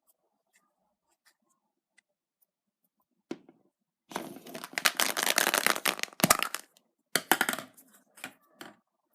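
Foil wrapper of a chocolate surprise egg being torn and crinkled off, in a long burst about four seconds in and a shorter one about seven seconds in, with a few sharp clicks.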